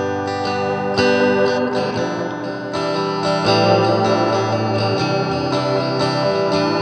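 Electric guitar (a Squier Bullet Stratocaster) played through an EarthQuaker Devices Space Spiral modulated delay pedal into a Fender Super Champ XD amp. New notes enter every second or two and ring on under wavering, slightly grainy delay repeats that overlap one another.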